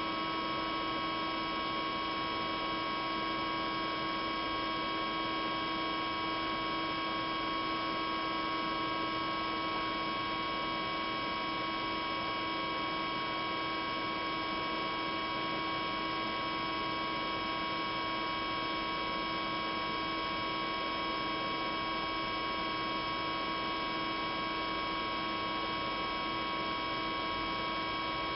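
A steady, unchanging hum with several constant tones over an even hiss.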